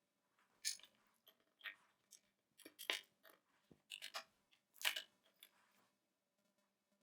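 Small plastic and metal connector parts handled and pressed together: a run of short sharp clicks and scrapes, the loudest about a second, three seconds and five seconds in.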